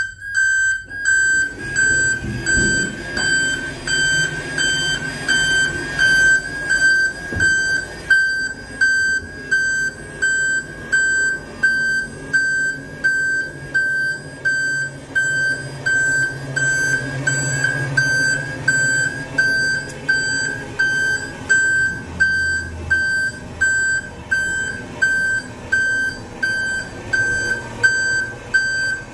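Watertight door warning alarm beeping about once a second, each beep one steady high tone. Under it the door's power mechanism hums as the door slides shut; the hum stops a few seconds before the beeping ends.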